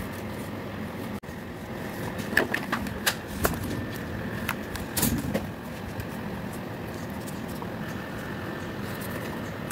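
Steady background noise, with a handful of sharp clicks and knocks between about two and five seconds in as the toy's circuit board and alligator-clip test leads are handled.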